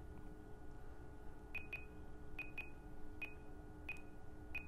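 Sharp switching clicks, each with a brief high ping, seven of them in pairs and singles starting about a second and a half in, over a faint steady hum: the vector network analyzer and its automatic calibration module stepping through a two-port auto-calibration.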